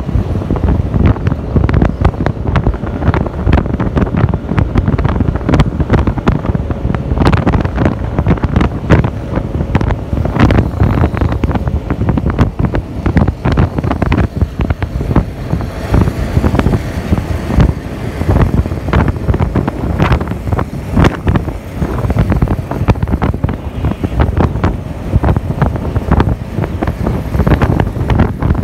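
Heavy wind buffeting on the microphone of a moving Yamaha scooter at about 60 to 80 km/h. Under it run the scooter's engine and road noise.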